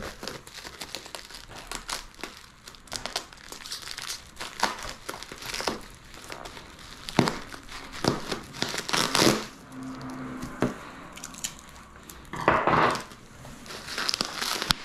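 Plastic bubble wrap crinkling and crackling as it is cut open with scissors and pulled apart by hand, in irregular bursts with several louder stretches.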